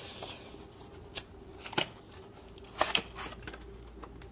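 Product packaging being handled and opened by hand: a brief rustle, then a few sharp clicks and snaps, the loudest about three seconds in.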